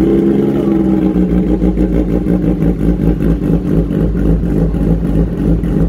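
Kawasaki Ninja ZX-10R inline-four engine idling steadily just after start-up, very loud through its aftermarket SC Project S1 full-system exhaust.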